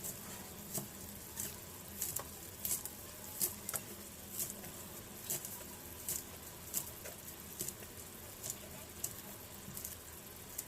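Green onions being cut into the pan of chicken wings: irregular sharp snips, roughly one or two a second, over a faint sizzle.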